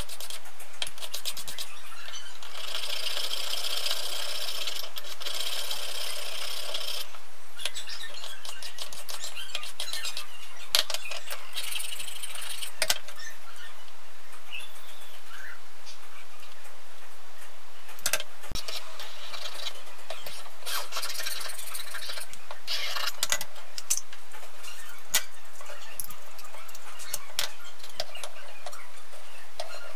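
Small-scale metalwork by hand, sped up fourfold: a needle file scraping a small metal part, with scattered sharp clicks of tools being picked up and set down.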